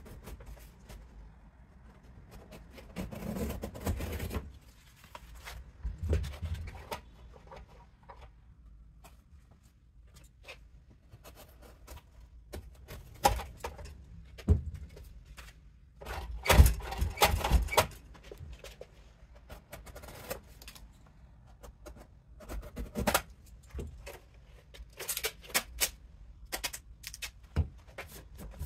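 Cardboard and duct tape being handled and fitted by hand: irregular rustling, tapping and scraping, with longer, louder noisy stretches a few seconds in and again about midway.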